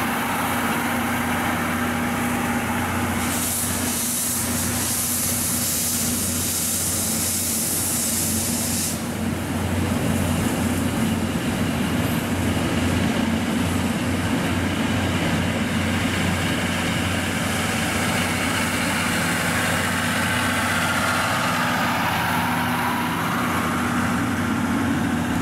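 Passenger train coaches rolling slowly past on the rails, with a steady low hum throughout. A loud hiss sounds from about three to nine seconds in, and the electric locomotive at the rear of the train passes near the end.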